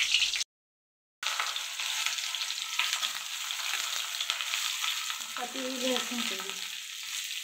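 Hot oil sizzling in an aluminium kadai, first around a whole dried red chilli with cumin seeds, then around sliced onions being fried and stirred with a flat metal spatula that clicks and scrapes against the pan. The sizzle breaks off into dead silence for under a second about half a second in, then resumes as a steady hiss.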